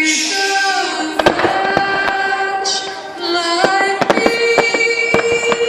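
Fireworks going off in a rapid, irregular run of bangs and crackles. Over them plays music with long held sung notes.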